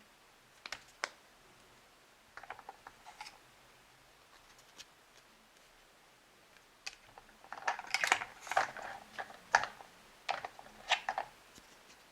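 Hard plastic toy parts being handled: scattered sharp clicks and short rustles, sparse at first and busier in the second half.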